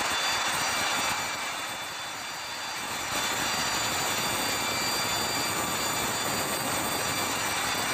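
Large in-line marine diesel engine running in a ferry's engine room: a loud, steady roar with several high, steady whining tones above it, dipping a little in level for a couple of seconds about a second in.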